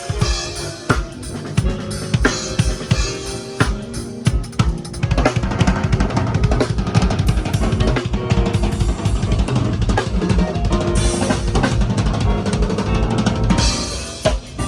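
Live drum kit played through a sound system during a sound check: a fast, steady kick-drum beat with snare hits and cymbals, and sustained pitched instruments underneath.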